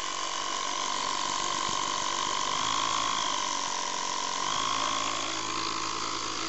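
A 12-volt portable air compressor running steadily: a continuous mechanical buzz with a high whining tone.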